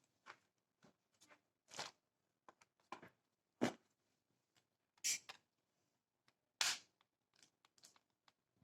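Irregular clicks, taps and short scrapes of hands and tools handling a laptop's plastic case and parts during a RAM upgrade, with the sharpest knock about three and a half seconds in and longer scrapes near five and seven seconds.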